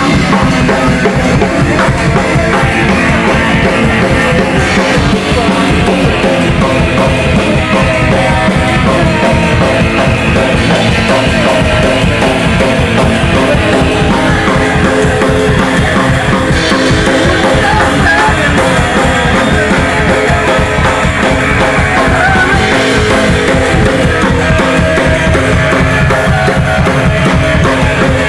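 Rock band playing loud and continuously: bass guitar, electric guitar and drum kit.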